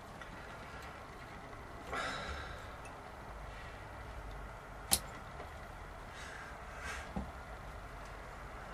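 Quiet handwork at the edge of a guitar fretboard, a craft knife trimming a plastic side-dot rod: a brief scraping rustle about two seconds in, one sharp click near the middle, and a few fainter clicks later.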